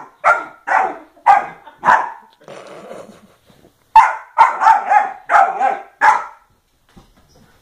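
Puppy barking repeatedly in short, sharp barks. About four barks come in the first two seconds, then a brief lower, rougher sound, then a quicker run of about six barks that stops about a second before the end.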